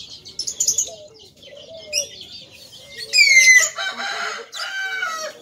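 A rooster crowing once, a loud drawn-out call starting about three seconds in and lasting roughly two seconds, with short high bird chirps before it.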